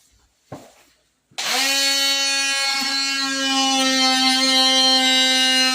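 Corded power tool switched on about a second and a half in, its motor spinning up and then running at a steady high speed, ready to cut an opening in the drywall. A brief rustle of handling comes just before it starts.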